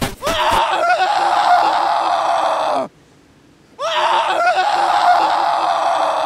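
Two loud, wavering screams, each about two and a half seconds long, with about a second's gap between them.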